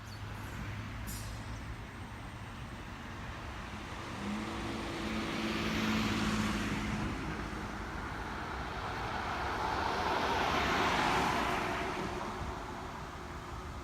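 Electric commuter train running past, a rumbling hiss that swells twice, with a steady low hum in the first swell.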